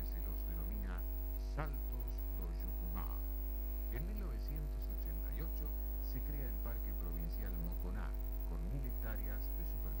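Steady electrical mains hum under soft music with plucked guitar and a voice.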